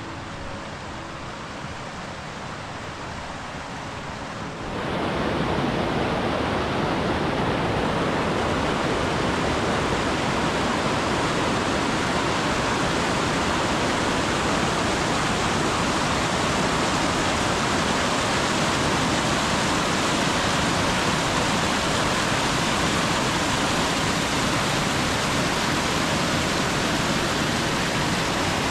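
Steady, loud rush of water from a mountain cascade, cutting in abruptly about five seconds in after a quieter hiss.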